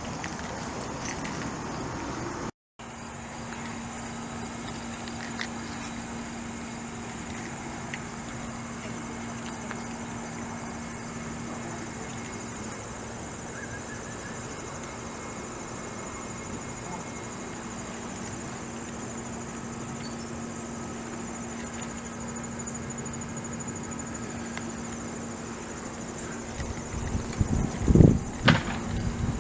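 Steady outdoor ambience: a constant high insect drone with a steady low hum beneath it, and a few loud thumps near the end.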